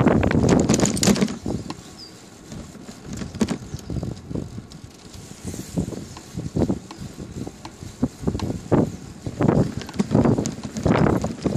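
Bicycle towing a dog buggy trailer, rolling along a paved street: a loud rush of wind on the microphone at first, then the trailer frame rattling and knocking irregularly over the road surface.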